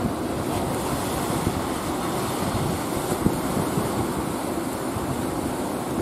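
Waves breaking and rushing water, a steady roar of surf, with wind buffeting the microphone.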